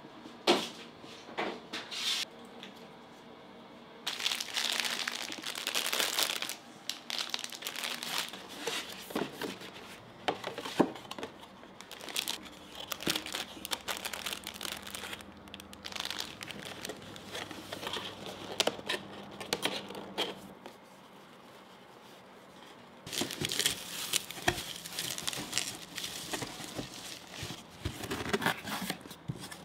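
Paper and plastic packaging crinkling and rustling in irregular bursts as scones are packed by hand into boxes, with a quiet pause about two-thirds of the way through. There are two sharp knocks in the first two seconds.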